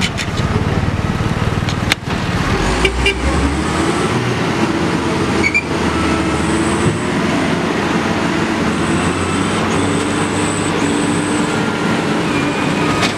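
Diesel engines of a wheel loader and a loaded light dump truck running steadily as the loader's bucket pushes the bogged truck through deep mud. A faint high whine joins in from about halfway.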